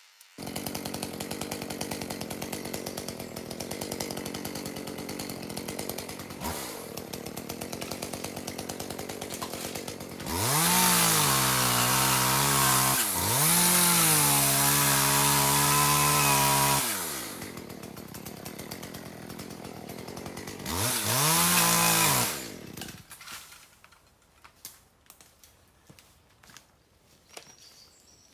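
Chainsaw idling, then revved to full speed twice: a long run of about six seconds starting about ten seconds in, with a brief dip partway, and a shorter burst of about a second and a half later on. These are the cutting runs of felling bamboo. The engine falls silent near the end, leaving only faint scattered clicks.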